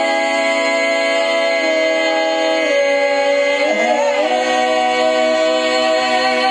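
Gospel vocal group holding the long final chord of a song in close harmony, with the chord shifting once about four seconds in.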